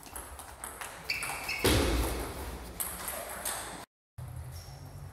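Table tennis rally: a celluloid ball clicks off bats and the table in quick succession, with brief shoe squeaks. The rally ends with a loud burst of noise a little under two seconds in.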